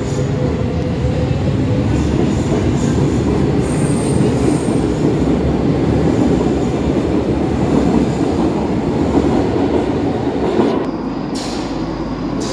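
Lisbon Metro train pulling out of an underground station and running past close by, with a steady rolling rumble of wheels on rail and a brief high wheel squeal about four seconds in. The rumble fades about eleven seconds in as the last car clears the platform.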